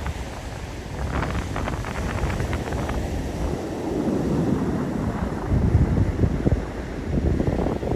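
Wind buffeting the microphone with ocean surf on the beach beneath it; the gusts grow stronger in the second half.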